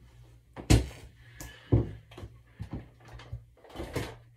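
Footsteps in wedge heels: two heavy thumps about a second apart, followed by several lighter steps.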